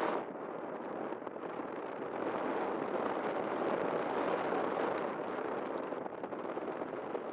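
Steady rushing wind and airflow noise on the onboard camera microphone of an E-flite Timber RC plane in low flight.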